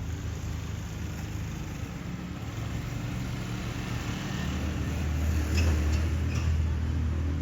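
A motor vehicle's engine running with a low, steady hum, growing louder for a few seconds and dropping away just at the end as it passes close by.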